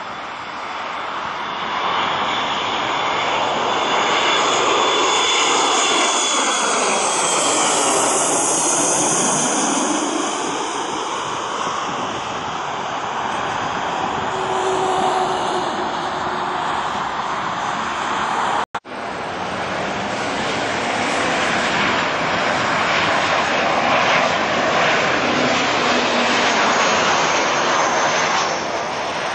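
A McDonnell Douglas MD-80 on final approach: its rear-mounted Pratt & Whitney JT8D engines grow loud and pass overhead, and the whine falls in pitch as the jet moves away. After a brief break about two-thirds of the way in, a landing Boeing 737-900's jet engines roar steadily.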